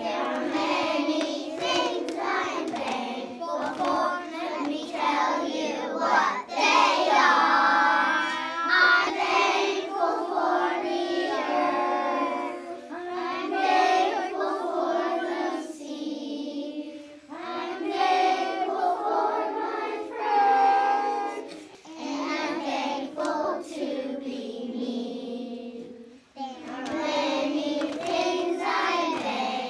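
A class of kindergarten children singing a song together, with a couple of brief pauses between lines.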